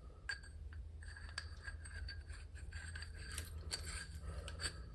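Small metal hardware clinking and rattling as it is picked through by hand, a string of sharp ringing clinks that grows busier in the second half, over a steady low hum.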